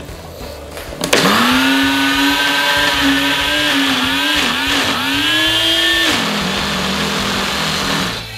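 Kitchen blender running on a load of blueberries for a shake. The motor starts abruptly about a second in, its pitch wavering as the blades chop, then drops to a lower, steady pitch about six seconds in before cutting off near the end.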